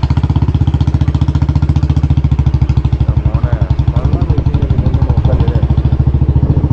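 Motorcycle engine idling while the bike stands still, a fast, even pulse of about a dozen beats a second.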